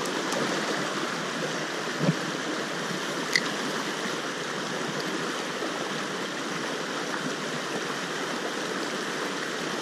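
Shallow, stony mountain stream rushing over riffles: a steady noise of running water. A brief small click sounds about three and a half seconds in.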